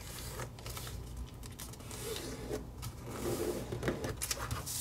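Origami paper being folded and creased by hand: fingers pressing and sliding along the fold, with soft rustling and short scrapes of paper.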